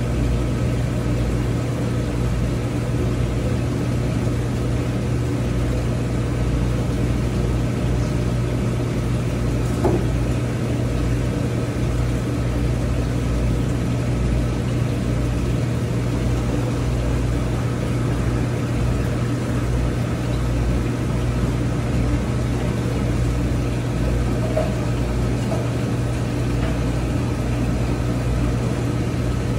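Aquarium equipment running with a steady low electrical hum and an uneven rumble beneath it.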